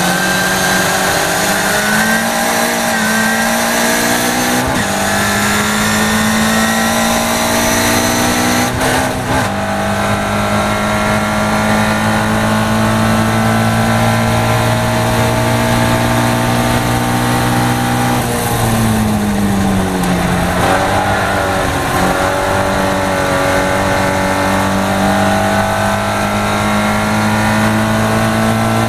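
Caterham Seven race car's four-cylinder engine heard from the cockpit, pulling hard through the gears. The pitch drops at quick upshifts about five and nine seconds in, holds high, dips again at about nineteen seconds, then climbs steadily.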